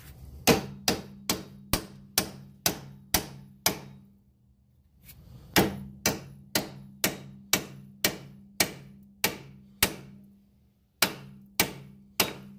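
Hammer blows on steel driving a strut-to-knuckle bolt back through the knuckle: three runs of steady strikes about two a second, each blow leaving a short low metallic ring.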